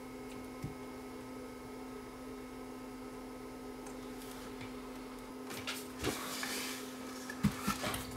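Steady low electrical hum on a repair bench. From about five seconds in come handling noises and a few sharp knocks as the opened stereo receiver's chassis and parts are moved about.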